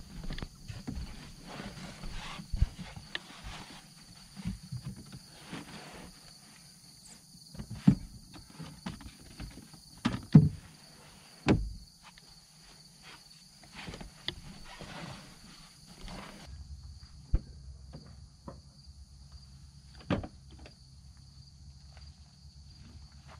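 Footsteps and scattered knocks and clunks of gear being handled, over a steady insect chorus.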